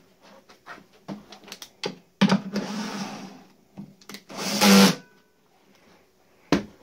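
Makita cordless drill running in two short bursts, about two seconds in and again near the five-second mark, driving the bolt in the saw box's curved adjustment slot. Sharp handling clicks and knocks come before the bursts, and one more just before the end.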